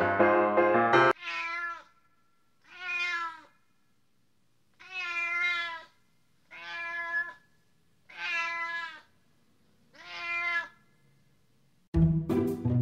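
Domestic cat meowing six times, each meow rising and falling and under a second long, with short silences between. Piano music cuts off about a second in and music starts again near the end.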